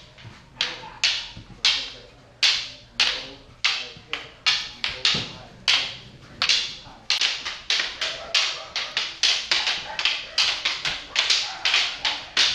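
Rattan eskrima sticks clacking together in double-stick partner drills: sharp, hard cracks, a couple a second at first, then faster and overlapping from about seven seconds in as several pairs strike at once.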